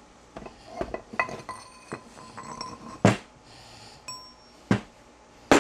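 Metal clinks and knocks of a steel lathe spindle and the parts on it being handled on a wooden bench, some clinks ringing briefly. The loudest knocks come about three seconds in and just before the end.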